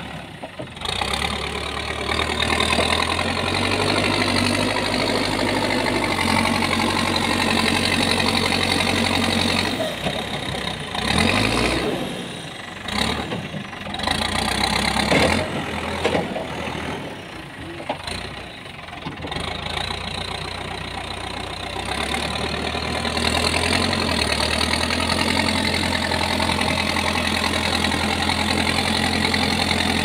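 Manitou backhoe loader's diesel engine running while the machine works, with the revs rising and falling unevenly in the middle stretch along with a few knocks as the loader bucket is worked, then settling back to a steady, slightly louder run.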